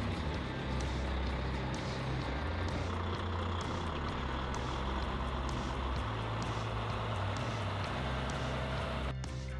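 Heavy truck engine running with a deep rumble that shifts in pitch every second or two, over a steady haze of road and wind noise. Music cuts in just before the end.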